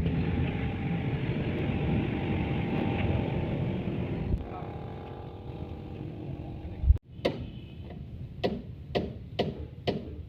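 An engine running steadily, dropping away about four seconds in; then a thump about seven seconds in, followed by a series of about five short, sharp knocks.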